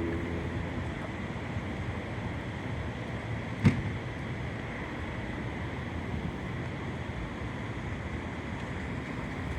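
Steady background rumble and hiss, with one sharp knock about three and a half seconds in.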